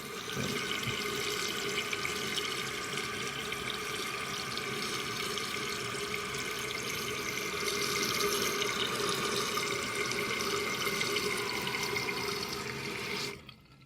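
1999 Kohler Wellworth toilet tank refilling after a flush: a steady rush of water through the fill valve, a little louder about eight seconds in, then cutting off sharply near the end as the valve shuts.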